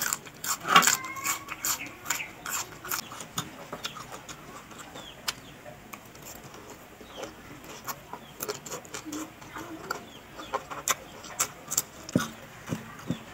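Close-up eating sounds: crisp, irregular crunching and clicking chews of raw greens and papaya salad, with strands of salad drawn into the mouth. A brief pitched sound about a second in.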